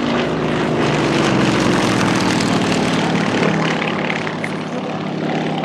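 Radial engine of a vintage propeller trainer aircraft running at power as the plane flies past, its note falling slightly in pitch over the middle of the pass.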